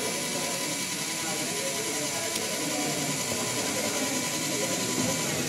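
Meccano model crawler tractor, driven by cable from a hand-held control board, creeping along and turning on its tracks: a steady mechanical whir from its drive and gearing, over faint background chatter.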